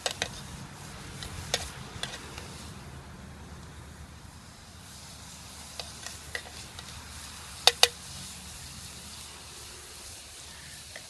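Vegetables sizzling in a metal canteen cup over a campfire, with the clink and scrape of a utensil stirring against the cup. Two sharp clinks close together, about three-quarters of the way through, are the loudest sounds.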